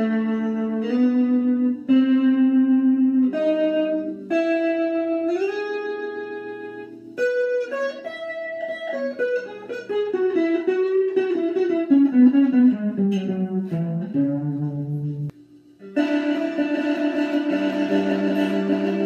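Solo electric guitar playing: held notes and chords with a slide up about five seconds in, then a fast run of notes stepping down in pitch. After a brief break, ringing chords follow.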